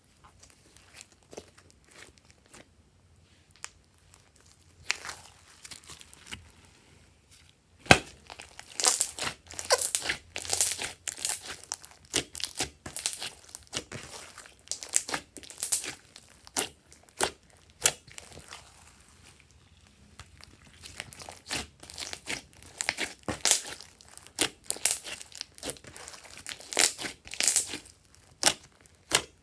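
Hands kneading, stretching and pressing glossy slime, making sticky crackles and clicks. The crackles are sparse at first, come thick and fast from about eight seconds in, pause briefly around twenty seconds, then pick up again.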